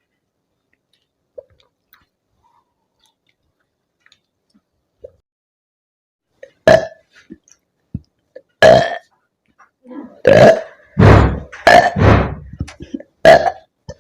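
A woman burping repeatedly from gas after chugging Limca soda: about half a dozen loud, short burps in the second half, a couple of them deep and drawn out. Before them it is nearly quiet, with a few faint clicks.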